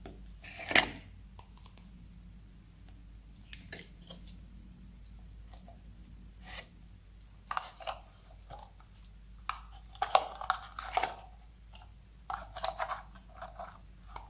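Clear slime squishing and clicking as hands work it out of a clear plastic jar, with the jar's plastic crinkling. The sounds come as scattered short clicks and squelches, a sharp one about a second in and busier clusters in the second half.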